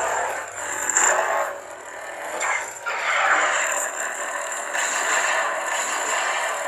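Proffie lightsaber sound font playing through the saber's speaker: a buzzing, crackling hum that swells about a second in and again around three seconds, as the blade is swung.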